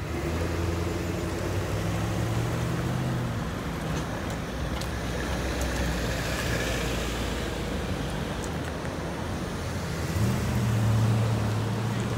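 Cars and pickup trucks driving across a railroad grade crossing: engines and tyre noise as they pull through, with a nearby engine hum loudest in the first few seconds and again near the end.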